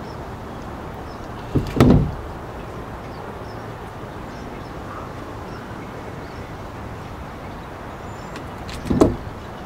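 Two short thumps, one about two seconds in and one near the end, over a steady background rush.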